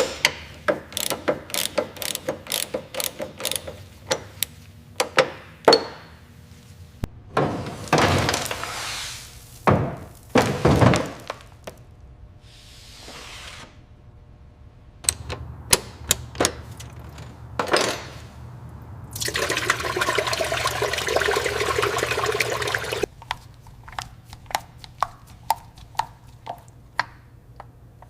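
A run of car-detailing workshop sounds: many sharp clicks and knocks, two whooshing sprays, and a steady hissing blast lasting about four seconds near the end.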